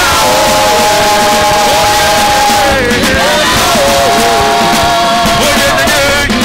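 Gospel worship music with singing over the voices of a large congregation. A long held note in the first half is followed by another held note after a short melodic turn.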